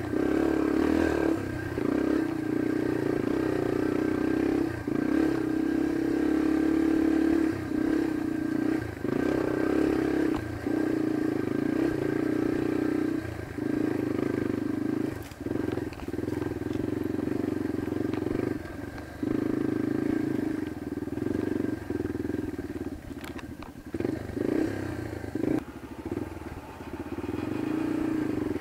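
Yamaha dirt bike engine running as it is ridden up rocky single track, heard close from the rider's chest. The engine note keeps dropping and picking up again every second or two as the throttle is eased and reopened.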